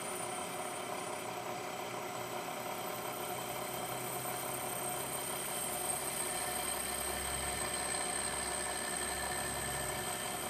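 Milling machine spindle running steadily while an end mill cuts a cast metal base, with a high whine over it. A low hum grows louder about halfway through.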